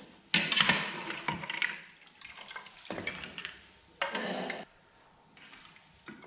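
Cooking utensils clinking and scraping against a pot of stir-fried rice noodles in a few separate bursts, the loudest about half a second in.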